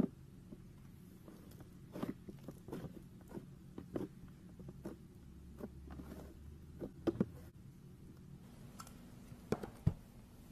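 Hands kneading, folding and squeezing slime, making irregular small sticky pops and clicks that come in clusters.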